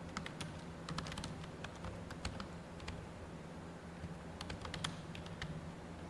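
Computer keyboard being typed on: quick runs of key clicks, with a pause of about a second and a half midway, over a steady low hum.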